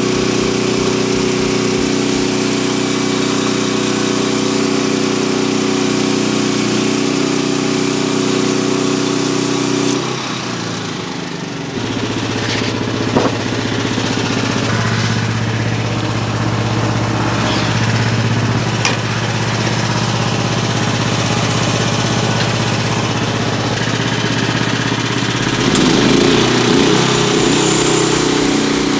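Sawmill engine running steadily; about ten seconds in its speed drops to a lower, slower note, then picks back up near the end.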